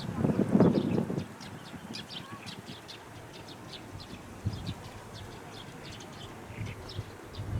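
Small birds calling with short high chirps, several a second. A louder low rumble sits under the chirps in the first second or so.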